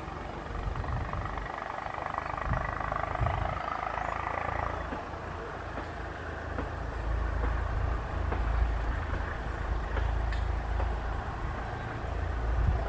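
Diesel locomotive approaching with a passenger train, its engine a low rumble that grows stronger about halfway through as it nears.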